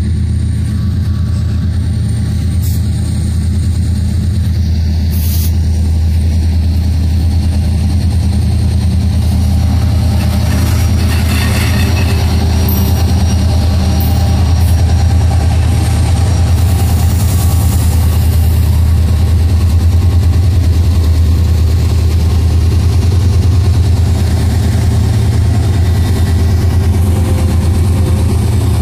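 Norfolk Southern diesel-electric freight locomotives running close by as they pass, a loud, steady deep engine drone that swells a little past the middle.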